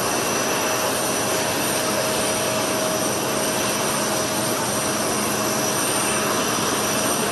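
Jet aircraft engine running steadily: an even rushing noise with a thin, steady whine over it.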